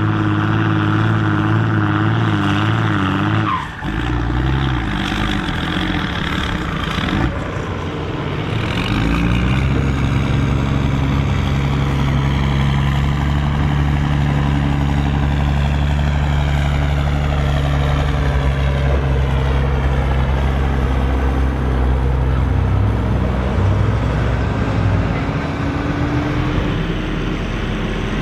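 Mercedes-Benz MB Trac tractors' diesel engines running and driving, in shots that change abruptly about four and eight seconds in. From about ten seconds in there is one steady, heavy engine note.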